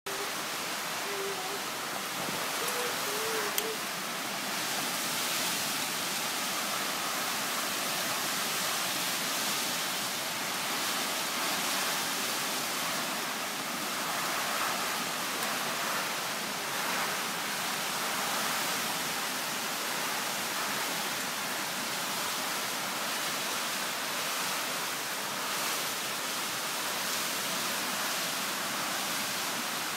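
Strong wind, a steady rushing hiss that swells and eases a little.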